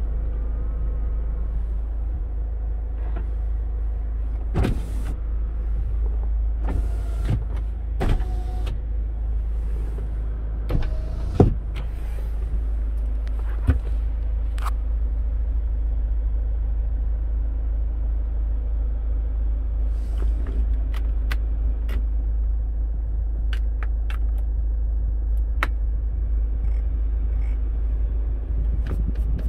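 Kia Sorento's 2.0-litre diesel engine idling, a steady low rumble heard inside the cabin. Scattered clicks and light knocks from switches and interior trim being handled sit over it, the loudest about eleven seconds in, with a quick run of small clicks later on.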